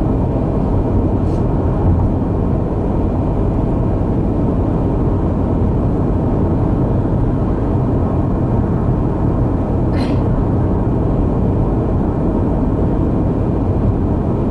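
Steady road and engine noise of a car driving on a highway, heard from inside the cabin, with a brief click about ten seconds in.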